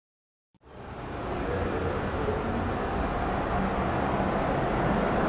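Street ambience with a steady traffic rumble, fading in after about half a second of silence.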